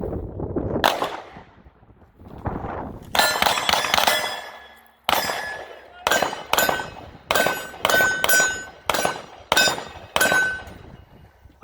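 A string of handgun shots on steel targets, each hit followed by a short metallic ring from the plate: a quick burst of several shots about three seconds in, then about a dozen more at a steady pace of one every half-second to second.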